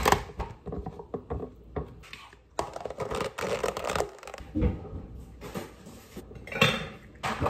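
Pieces of coconut dropped into a plastic food container, then its snap-on plastic lid pressed down, giving a run of small knocks and plastic clatters.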